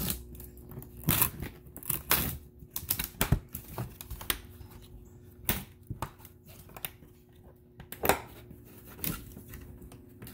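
Plastic latch clasps being fastened on hard-plastic prop panels: a dozen or so irregular sharp clicks and knocks of plastic on plastic as the clasps are pressed and snapped shut.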